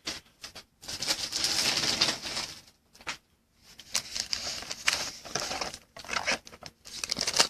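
Trading cards and plastic packaging being handled by hand: irregular rustling, sliding and crinkling in short bursts, with a brief pause about three seconds in.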